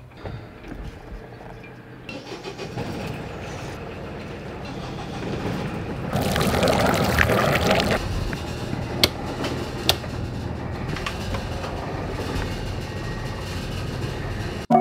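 A boat engine starting up and then running steadily, with two sharp clicks a second apart partway through.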